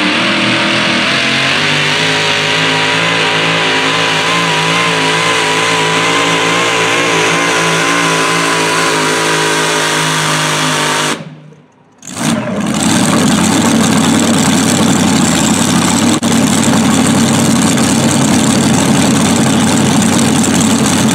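Supercharged engine of a super modified 4WD pulling truck running flat out under load as it drags the pulling sled, its pitch wavering as the revs rise and fall. The sound drops out abruptly for about a second just past the middle, then returns rougher and deeper.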